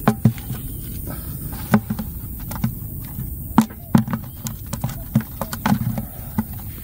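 Irregular taps and thumps, a dozen or so, from small fish being picked out of a cast net and dropped or flopping in a plastic bucket.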